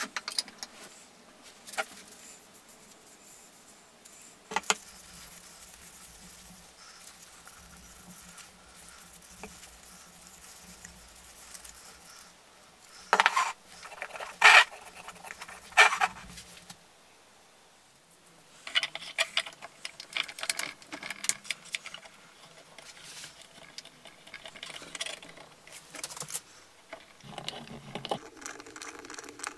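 Quiet handling noises at a workbench: a few sharp clicks and taps about halfway through, then a stretch of light irregular rubbing and rattling.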